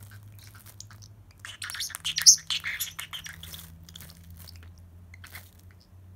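Plastic cling film crinkling and crackling as a Pacific parrotlet pecks and tugs at it, in a dense cluster of crackles loudest from about one and a half to three and a half seconds in, with fainter rustles either side.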